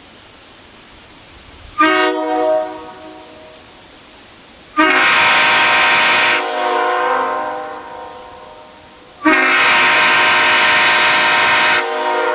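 Nathan Airchime K5HL five-chime locomotive air horn, a raised-letter casting, blown loud on about 120 psi of compressed air. A short blast comes about two seconds in, then two long blasts of about one and a half and two and a half seconds. Each sounds a full chord and echoes on briefly after it cuts off.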